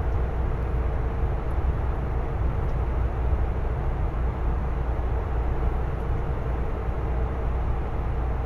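Steady rumble of a moving truck heard from inside its cab: engine and tyre noise at cruising speed, with a faint steady hum above it.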